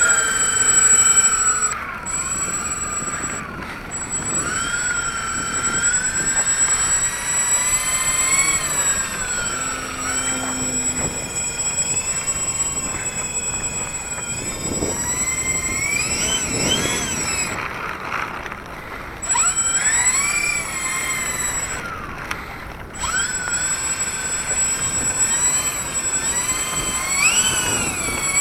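Electric motors and propellers of a large RC B-24 Liberator model running on the ground, their whine repeatedly rising and falling in pitch with the throttle, with a steady high-pitched whine underneath.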